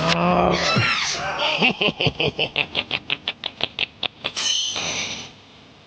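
Squeaky animal-like vocal sounds: a short cry, then a quick run of high chirps about five a second that slowly fade, and a final brief high squeal.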